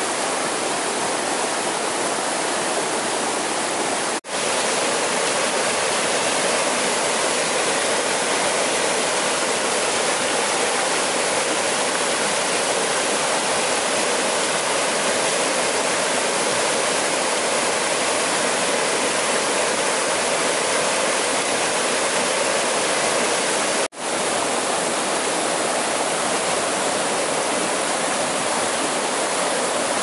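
Steady rushing of running water, cutting out for an instant twice, about four seconds in and again about twenty-four seconds in.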